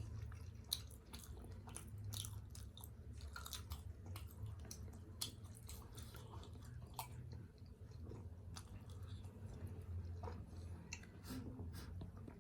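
Close-miked chewing of steamed chicken momo dumplings: irregular wet smacks and mouth clicks, over a steady low hum.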